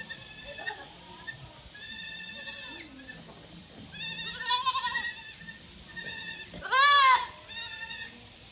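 Goats bleating: a string of separate calls of different pitches, several of them high and thin. The loudest is a rising-and-falling bleat about seven seconds in.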